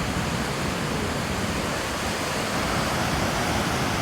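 Steady rushing of a large waterfall in heavy spring flow, Vernal Fall's water pouring and crashing below it.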